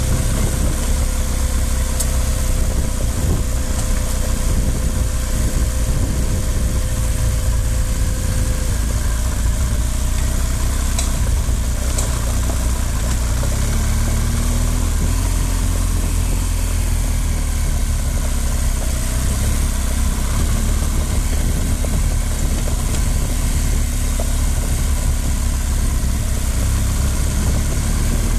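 Motorcycle engine running steadily at low speed on a dirt trail, heard from a camera on the moving bike, under a constant deep rumble. The engine note rises and falls slightly in the second half.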